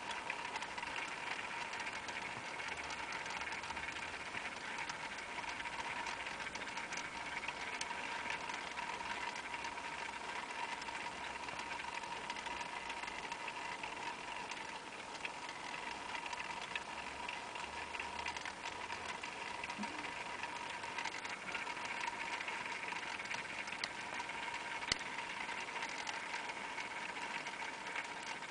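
Small electric motor of a rotating jewellery display stand running with a steady whir and a constant whine, with faint scattered ticks.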